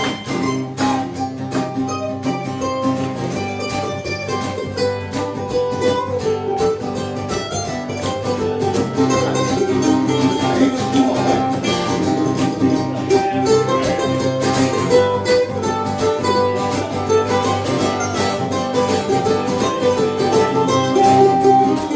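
Live band playing an instrumental break in a folk song: quick plucked string notes carrying a melody over a steady accompaniment, with no singing.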